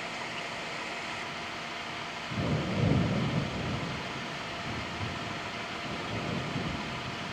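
Thunder rumbling from a severe thunderstorm, starting about two seconds in, loudest a second later, then rolling on more faintly. A steady hiss runs underneath.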